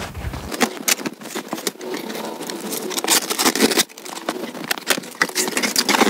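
Cardboard box being opened by hand: a busy run of sharp crackles, taps and scrapes from the flaps and packaging.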